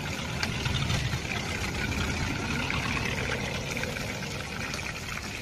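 Battered chicken legs deep-frying in a steel kadai of hot oil: a steady sizzle and bubbling, with a low rumble underneath.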